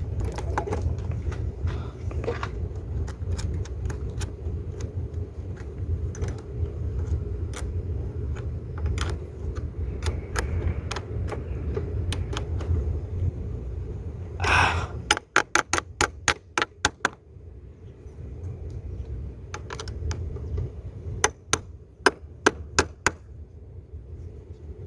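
Ratchet wrench clicking in quick runs as a battery terminal clamp is tightened, among scattered knocks of metal tools, over a steady low hum.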